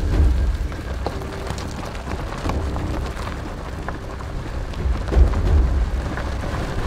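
A car rolling off the road onto a dirt and gravel shoulder: tyres crunching over loose ground under a deep rumble, starting suddenly and swelling twice.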